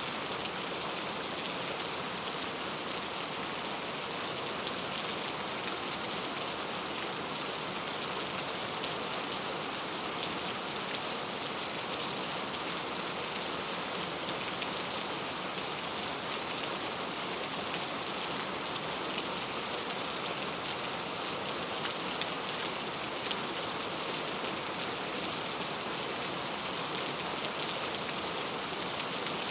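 Heavy rain falling steadily, a dense even hiss with many small drop impacts.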